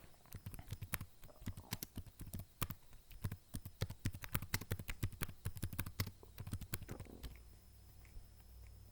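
Typing on a computer keyboard: a quick, irregular run of key clicks that stops about seven seconds in.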